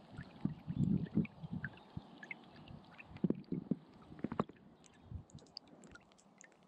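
Kayak paddle strokes through calm canal water: irregular low sloshes as the blades dip and pull, with small drips and splashes and a few sharp clicks around the middle.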